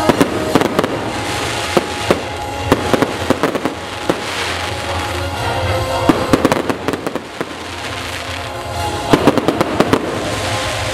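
Aerial fireworks shells bursting overhead: four clusters of rapid cracking bangs, roughly three seconds apart, over a steady hiss.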